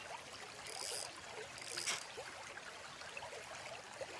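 Water trickling and lapping in small droplet-like blips, with two short high hissing sounds about a second in and just before the two-second mark.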